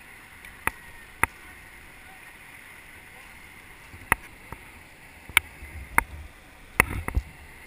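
River water rushing past an inflatable kayak, with sharp knocks and splashes from paddling against the hull and camera: about six of them, the last few bunched together near the end.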